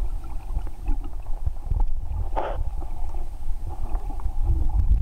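Muffled low rumble of sea water moving around a camera held just under the surface, with one short rush of noise about halfway through.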